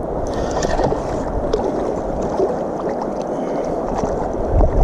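Flowing river water, a steady rushing sound, with a few faint ticks and splashes about a second in.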